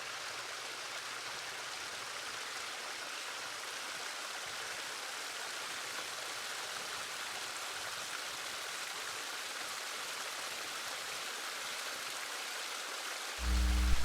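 Steady rushing and splashing of a boulder-built pondless waterfall's water running down over rocks. A loud, low sound cuts in just before the end.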